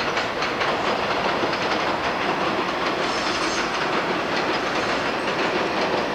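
New York City subway train running past, its steel wheels clattering over rail joints in a steady rumble with many quick clicks.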